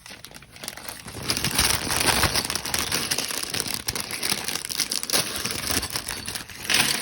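A plastic bag of LEGO pieces crinkling and rustling as it is handled and torn open, with small clicks of pieces shifting inside. It gets loud about a second in.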